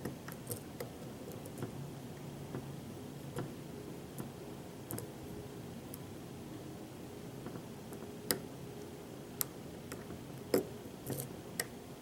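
Small irregular metallic clicks of a lock pick working the pins of a hand-made pin tumbler challenge lock under tension. They are faint at first, with a few sharper, louder clicks in the second half.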